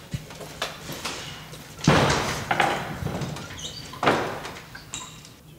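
Rubber mast seal being forced down a metal service mast onto the roof flashing: two loud scraping rubs about two seconds apart, with light squeaks and knocks between them.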